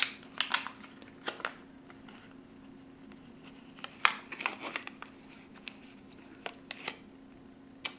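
Foil pouch of a test kit crinkling and crackling in the hands in short scattered bursts as a small test strip is worked out of it.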